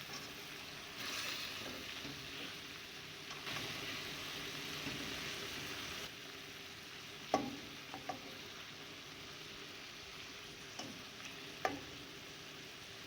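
Seasoned chicken sizzling in browning, sugar caramelised in oil, in a pot. The sizzle is strongest in the first half and eases after about six seconds, with a few sharp knocks of a utensil on the pot.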